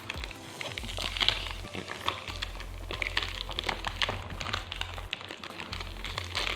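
Plastic wrap being peeled off a perfume box, crinkling and crackling in irregular bursts, over quiet background music.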